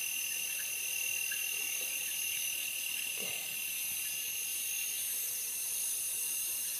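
Night insects in tropical forest chirring steadily: a continuous high-pitched ringing held at two steady pitches.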